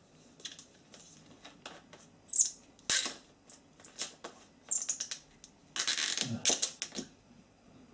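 Screw cap of a hot sauce bottle being wrenched open by hand: a run of clicks and scrapes with short high squeaks as the cap grinds on its thread, and a longer rasping scrape about six seconds in.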